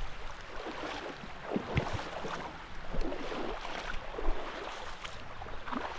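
Water splashing and lapping against a fishing kayak, with a few low knocks.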